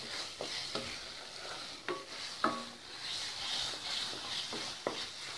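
Thick curdled milk mixture sizzling in a nonstick pan as a spatula stirs and scrapes it, cooking down so its remaining water boils off. A few sharp knocks of the spatula against the pan come through the steady sizzle.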